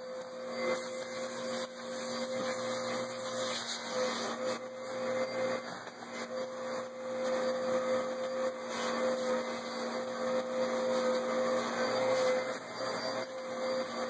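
Bissell Powerforce Helix upright vacuum cleaner running on carpet and sucking up spilled potting soil: a steady motor hum over rushing air. The sound swells and eases as the vacuum is pushed back and forth.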